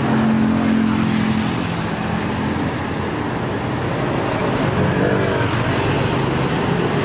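Steady road traffic: engines of passing vehicles running, with one engine's steady hum standing out in the first second or so.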